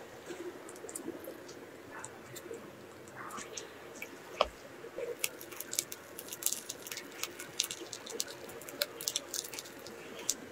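Oreo whipped cream being squeezed from a plastic piping bag into a plastic box: soft wet squishing with a run of small crackles from the bag, thickest in the second half. There is one sharp tap about four seconds in.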